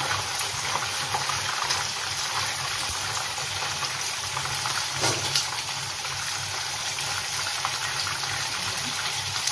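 Pomfret fish deep-frying in hot oil: a steady sizzle with fine crackling, and a brief louder knock about five seconds in as a spatula lifts a fish from the pan.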